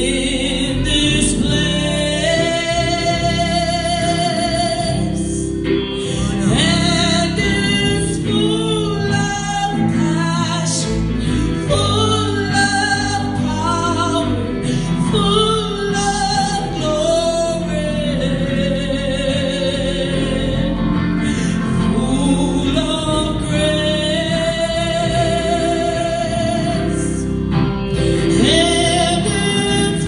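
A woman singing a gospel song into a microphone, accompanied by an electric guitar played through an amplifier; her long held notes waver with vibrato.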